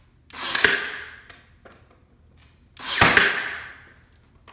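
Cordless brad nailer firing twice, about two and a half seconds apart, driving 1¼-inch brads into a wooden board. Each shot is a sharp crack with a rush of noise that fades over about half a second.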